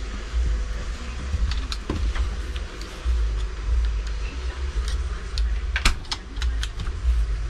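Compact RV refrigerator door opened and swung shut, with a quick run of sharp clicks and rattles about six seconds in as it closes. A low rumble runs underneath.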